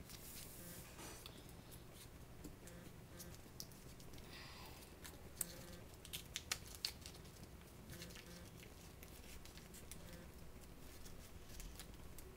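Faint rustling of two paper banknotes being rolled up together by fingers on a desk, with a few soft ticks in the middle.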